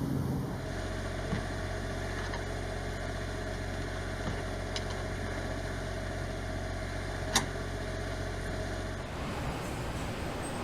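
Steady machine hum with a faint noisy haze, and a single sharp click a little past the middle.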